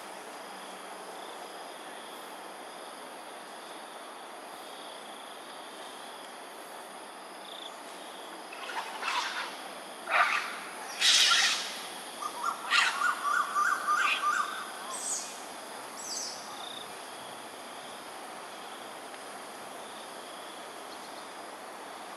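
Animal calls over a steady outdoor hiss: a few sharp cries about nine to eleven seconds in, then a rapid chattering run of repeated notes and a couple of higher chirps.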